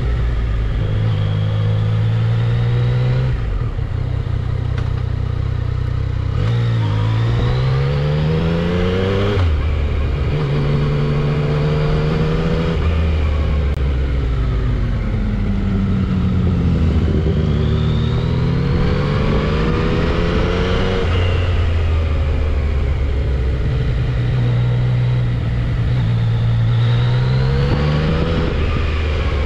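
Yamaha XSR900 inline-three engine on its stock exhaust, with its smooth sewing-machine note, pulling up through the revs several times and dropping back between pulls as the bike is ridden through twisty road. Wind noise runs underneath.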